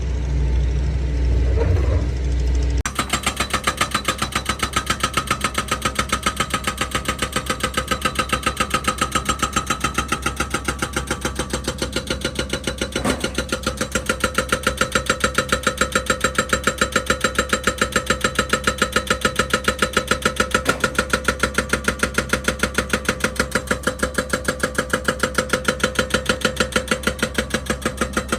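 A heavy engine running: a deep rumble at first, then from about three seconds in a steady, evenly pulsing chug.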